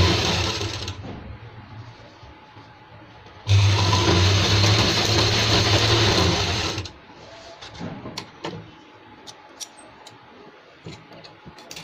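Straight-stitch sewing machine running at speed as it sews a piping strip onto a sleeve edge, in two bursts of stitching. The first ends about a second in; the second runs from about three and a half seconds to seven. Afterwards come a few light clicks.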